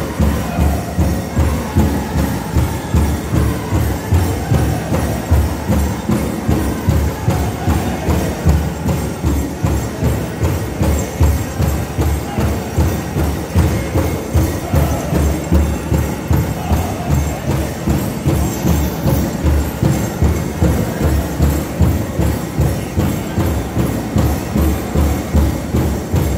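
Powwow drum group: a big drum struck in a steady, even beat, with singers' voices over it and bells jingling.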